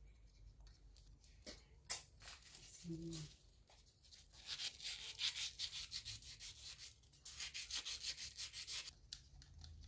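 Quick rubbing strokes, about five a second, on an electric fan motor just oiled with sewing-machine oil. They come in two runs with a short break near the middle, after a few light clicks.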